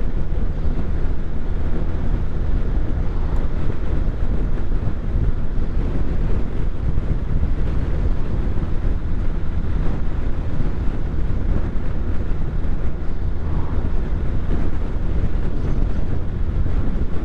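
Steady low drone of a vehicle driving along a road, with wind rushing over the microphone.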